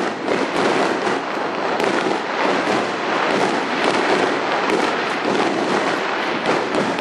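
Aerial fireworks going off in a dense, unbroken barrage, with many overlapping bursts and crackling glitter.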